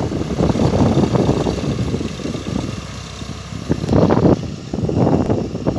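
Eicher tractor's diesel engine running as it puddles a flooded paddy field on cage wheels, heard as an uneven, rumbling drone that swells about four seconds in.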